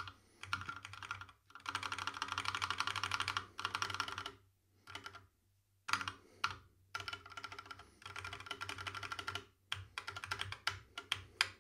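UHK 60 v2 split mechanical keyboard being typed on: bursts of rapid key clicks that stop and start several times.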